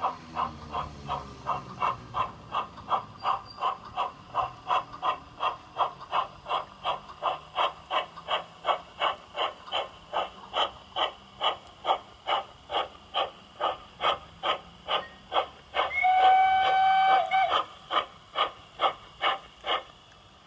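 LGB garden-railway model steam tank locomotive chuffing steadily and evenly, about two and a half chuffs a second. About two-thirds of the way through, it gives one chord-like steam whistle blast of about a second and a half.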